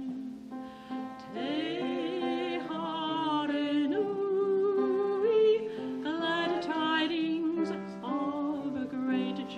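Two women singing a carol in unison with vibrato, over a sustained instrumental accompaniment, with short breaks between phrases.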